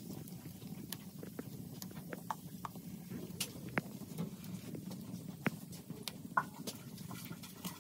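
Wood and split-bamboo fire crackling, with irregular sharp pops over a low steady rumble.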